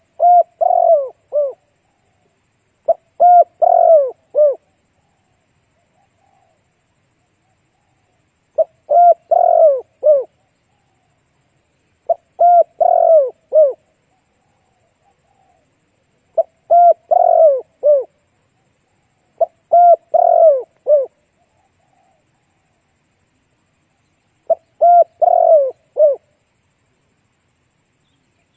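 Spotted dove cooing: seven repeated phrases, each a quick run of three to five coos, spaced every three to four seconds with silence between. This is the male's territorial call, used here as a decoy call to provoke wild males.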